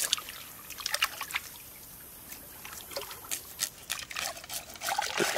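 Shallow water trickling and splashing in small, irregular splashes as a large snake is handled and worked with a cleaver in it. The splashing is sparser in the middle and busier again near the end.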